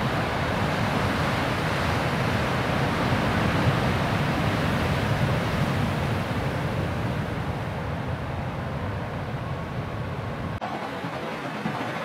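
Steady roar of big surf and wind buffeting the microphone. About ten and a half seconds in the low rumble cuts out abruptly, leaving a thinner hiss.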